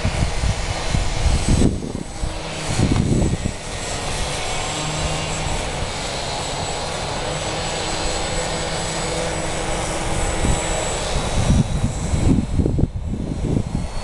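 ParkZone Albatros electric RC biplane in flight overhead, its motor and propeller making a steady hum with a faint high whine, clearest in the middle. Wind gusts buffet the microphone with low rumbles near the start and again near the end.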